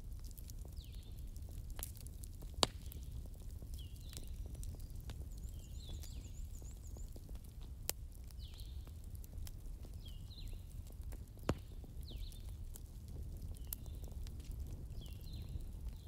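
Wood fire crackling, with a steady low rumble under many small crackles and three louder sharp pops: one about two and a half seconds in, one near the middle and one about three quarters through.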